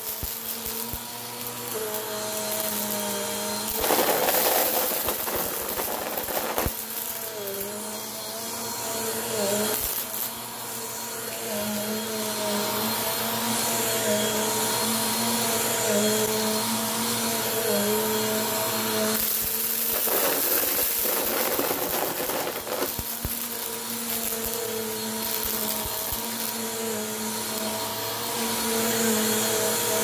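Upright bagless vacuum cleaner running steadily, its motor pitch wavering a little as it is pushed back and forth over carpet. There are two louder, hissing and rattling stretches, about four seconds in and around twenty seconds, as it sucks up spilled dry debris.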